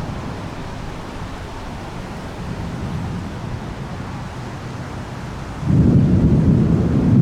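Thunder rumbling low during a severe thunderstorm: a rumble dies away at the start, and near the end a new, louder rumble breaks in suddenly. Between them a steady hiss of rain and wind runs on.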